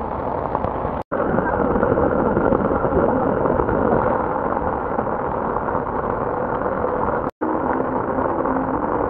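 Steady hiss of heavy rain, cut off for a moment twice.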